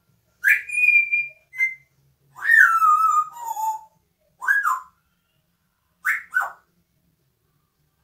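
African grey parrot whistling a string of clear notes. It gives a rising note held high about half a second in, then a longer phrase that slides down and settles lower in the middle. Near the end come short rise-and-fall notes and two quick falling notes.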